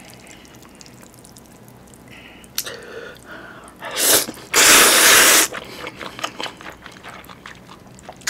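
Chewy jjolmyeon noodles slurped from chopsticks in one long, loud draw about halfway through, followed by wet chewing and small mouth clicks.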